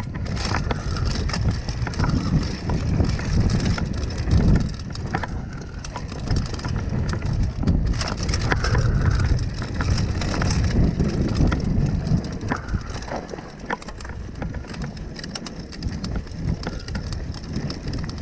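Mountain bike's knobby tyres rolling fast over a dirt and gravel trail: a steady crunching rumble broken by many sharp clicks and knocks as the bike rattles over the ground. It eases off a little in the last few seconds.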